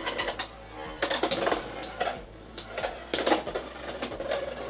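Two Beyblade X spinning tops, Night Shield on a 9-60 Gear Needle bit against Phoenix Wing, spinning and colliding in a plastic stadium. Clusters of sharp clacks from the hits come about a second in and again around three seconds in, with rattling and scraping between them.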